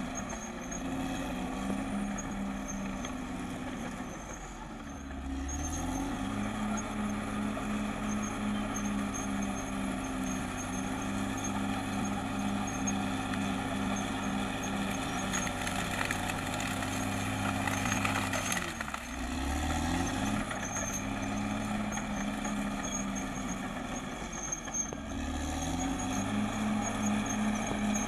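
CAT D6R XL bulldozer's diesel engine running at work. The engine note drops and climbs back three times, about five seconds in, near two-thirds through and near the end.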